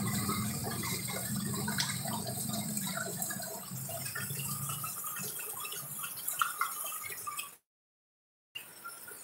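Heavy rain falling on a street, with scattered drips and splashes. A low engine hum fades away about halfway through, and the sound cuts out for about a second near the end.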